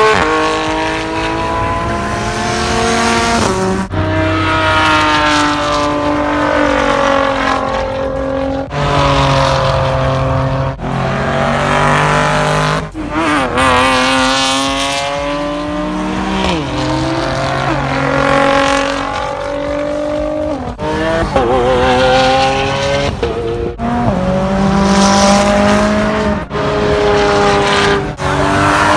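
Performance cars' engines at high revs as they drive fast past on a track, in a string of short clips that cut abruptly every few seconds. The engine pitch climbs as the cars accelerate and drops as each one goes by.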